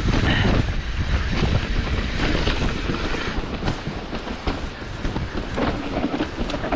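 Hardtail mountain bike rolling down a dirt trail: steady wind rush on the microphone and tyre noise, with frequent rattles and knocks as the bike clatters over rough ground.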